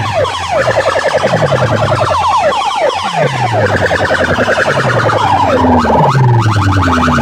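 Big loudspeaker stacks blasting electronic siren-like effects: fast falling chirps, about ten a second, over deep falling bass sweeps that repeat every second or two.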